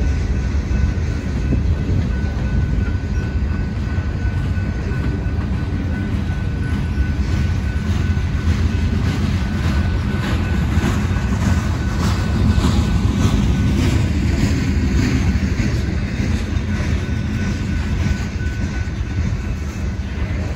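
Freight train of covered hopper and tank cars rolling past: a steady low rumble of steel wheels on the rails, with a run of sharp clicks and clacks in the middle stretch and a thin steady high tone throughout.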